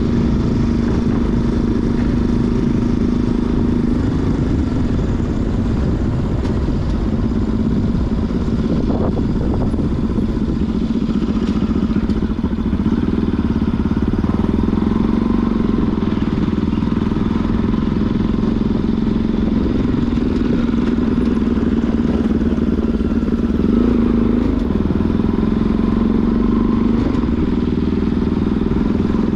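Motorcycle engine running steadily while the bike is under way, its pitch dipping and rising slightly a few times, over a low rumble.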